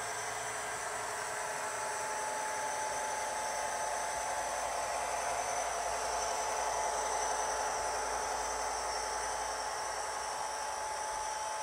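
Model train running on the layout: a steady whirring with a thin motor whine, growing a little louder midway and then easing.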